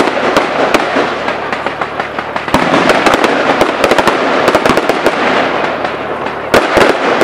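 Zeus Fireworks Coliseum firework firing: a dense, continuous crackle of bursting stars with sharp bangs scattered through it, thickest about two and a half seconds in and again near the end.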